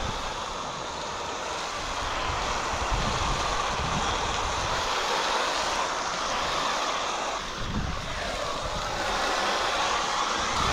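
Garden hose with a foam-sprayer bottle attachment spraying soapy water over a boat's hull and trailer: a steady hiss of spray hitting the surfaces, easing briefly about seven and a half seconds in.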